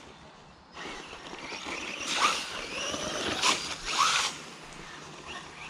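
Bezgar HM124 brushless RC car's motor whining up in three short throttle bursts while its tyres spray through a muddy puddle, running on a 3S LiPo pack.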